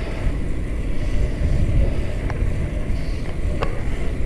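Steady low wind buffeting on an action camera's microphone while riding a bike along a paved road, with a couple of faint ticks.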